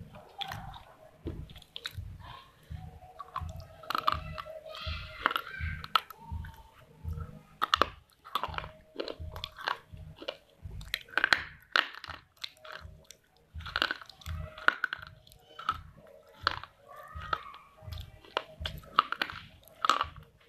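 A person chewing crunchy clay close to the microphone: a steady run of crisp crunches with dull jaw thuds, about one and a half chews a second.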